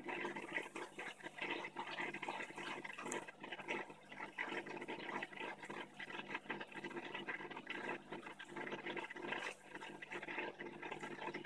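Aquarium water bubbling and trickling steadily, with a faint low hum underneath.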